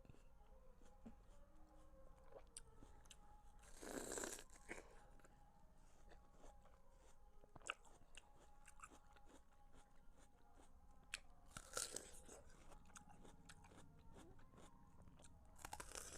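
A person biting into and chewing watermelon: three louder crunching bites, about four seconds in, near twelve seconds and at the very end, with faint wet chewing clicks between them.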